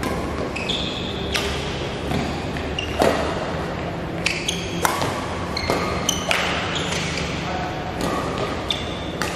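Badminton doubles rally: a string of sharp racket-on-shuttlecock hits, the loudest about three seconds in, with sneakers squeaking on the court floor in between. Each hit echoes in the large hall.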